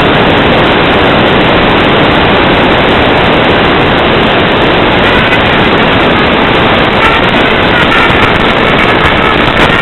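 Loud, steady static hiss from the audio channel of an analog FPV video downlink receiver. Faint wavering tones come up through the hiss about halfway through.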